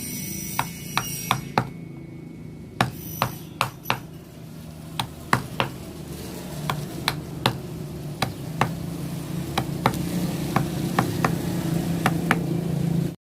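Irregular sharp taps, about two to three a second, typical of a mallet striking a carving chisel into wood, over a steady low hum. The sound cuts off suddenly at the end.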